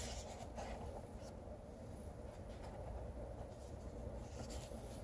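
Faint rustles and soft handling noises of a picture book being opened and its pages turned, a few brief scrapes over a steady low room hum.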